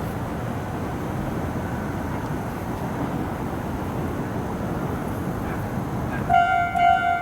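Steady rumble of passing vehicles, then about six seconds in a Japanese railway level-crossing alarm starts, ringing a loud, repeating pitched ding.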